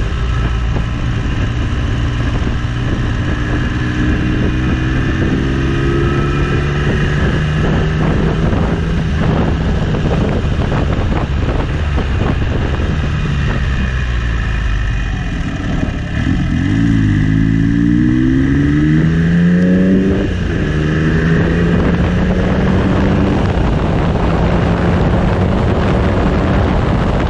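Triumph Trident T150V three-cylinder motorcycle engine running through its 3-into-1 exhaust, steady at first, then revving up steeply for a few seconds about two-thirds through before the pitch drops and settles again.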